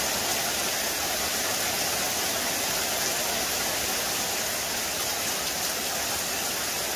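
Heavy rain falling steadily, with water streaming off the edge of a roof onto leaves.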